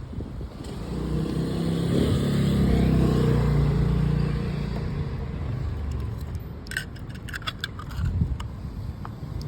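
A car passing by on the street: its engine and tyres swell up, are loudest about three seconds in, and fade away. A few light metallic clinks follow near the end.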